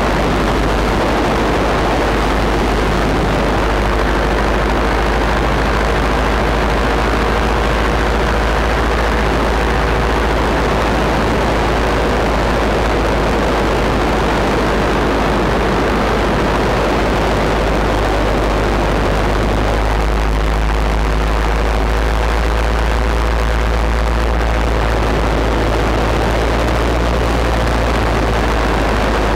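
Paramotor engine and propeller running steadily at cruise, close behind the microphone, with heavy wind rumble on the microphone. The engine note shifts slightly about twenty seconds in.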